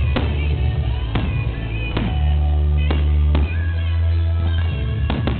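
Music with held low notes plays while fireworks burst overhead, with about seven sharp bangs spread through it, roughly one a second, and two coming close together near the end.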